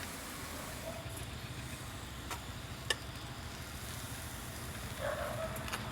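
Marinated chicken grilling over a fire: a faint steady sizzle with a few sharp pops and crackles.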